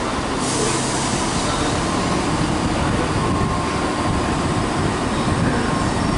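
Transport for Wales Class 769 bi-mode unit running on its diesel generator engines: a steady, loud rumble. A thin steady whine joins about two seconds in.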